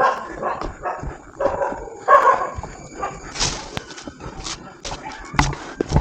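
A dog barking and yelping in short bouts at the start and again about two seconds in, followed by a few sharp knocks.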